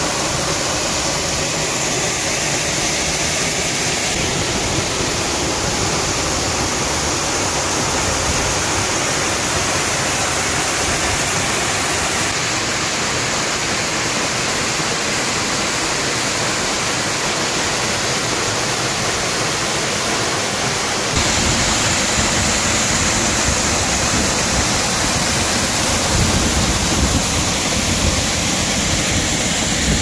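Waterfall pouring into a rock pool: a steady, loud rush of falling water. Its tone shifts a few times, and about two-thirds of the way through it grows louder and deeper.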